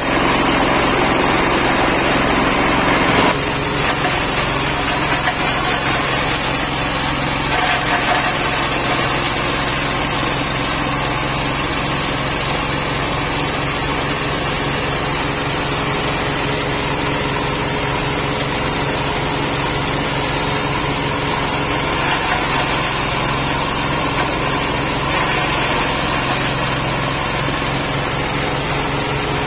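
Red BRF 3-in-1 chopper/grinder machine running under load, driven by a small single-cylinder stationary diesel engine, grinding dry chunks fed into its hopper into meal. The engine and machine noise is loud and steady, with an abrupt change in texture about three seconds in.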